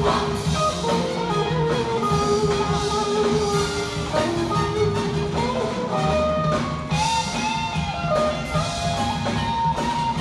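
Upbeat show-choir number played with drum kit and guitar, a steady beat under sustained held notes.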